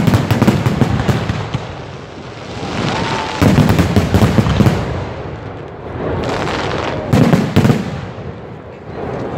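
Aerial firework shells bursting in quick volleys of sharp bangs and crackle. The loudest clusters come at the start, about three and a half seconds in, and about seven seconds in.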